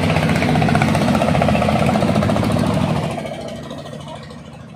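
A motor vehicle engine running loud and close, with a steady chugging hum. About three seconds in it begins to fade and dies away over the last two seconds.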